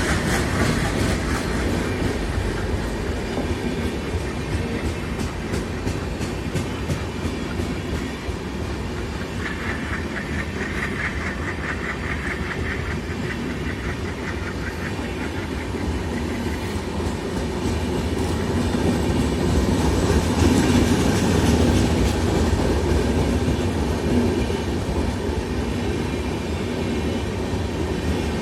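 Express passenger train running along the track, its wheels clattering steadily over the rail joints with a continuous rumble. It grows louder about two-thirds of the way through.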